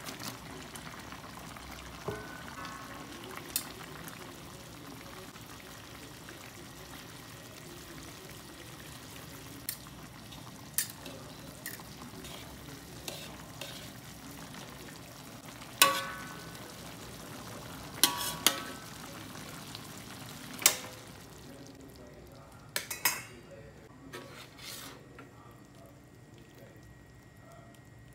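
Sweet-and-sour sauce sizzling in a metal wok while noodles are stirred through it, a metal fork and spatula clinking against the pan a dozen or so times; the loudest clinks, about halfway through, ring briefly. The sizzle dies down near the end.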